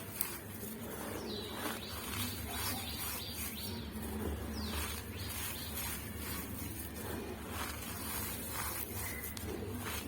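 Fine dry charcoal powder pressed and squeezed by hand, giving irregular squeaky, gritty crunches over a steady low hum.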